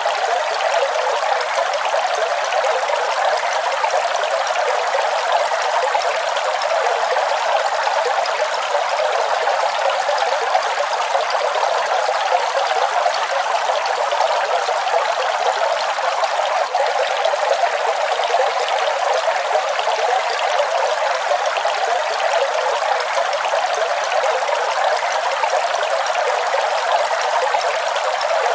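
Waterfall: water falling and rushing in a steady, unbroken hiss, bright and without a deep rumble.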